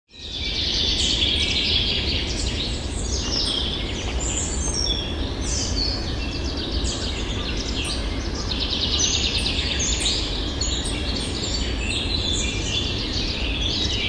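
A recorded chorus of forest songbirds, many overlapping chirps and rapid trills, over a steady low background rumble. It starts suddenly out of silence and serves as a countdown timer's end alarm.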